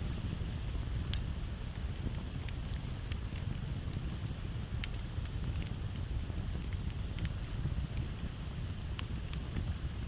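Campfire crackling, with frequent irregular sharp pops over a steady low rumble of flames and breeze. The even high chirring of crickets runs underneath.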